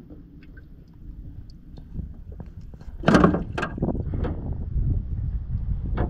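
Handling noise from netting a live bluegill out of a boat's bait well: a few sharp knocks and clatters, loudest about three seconds in, with single knocks about a second later and near the end, over a low rumble on the microphone.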